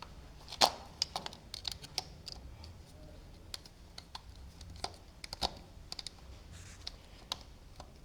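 Irregular small clicks and taps of hands and tools working wires into the terminals of a four-gang light switch, with one louder knock about half a second in.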